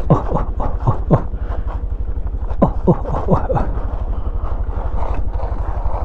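Honda Scoopy scooter's single-cylinder engine running slowly on a rough dirt trail. Two runs of short squeaks, each falling in pitch, come over it, about five near the start and about five more around the middle.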